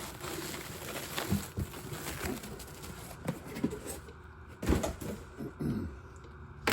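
Rustling of packing wrap and knocking of wrapped items being handled in a box, with scattered clicks and taps.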